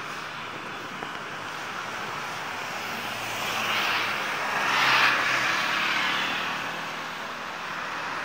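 A light box truck drives past on the road, its engine and tyre noise swelling to a peak about five seconds in and then fading away.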